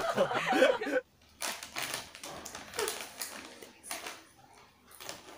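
A plastic snack packet crinkling and rustling as a hand reaches into it, in short irregular crackles starting about a second in.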